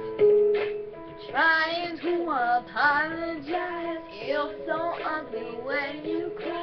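Two young women singing a slow pop ballad together over a backing track with sustained chords.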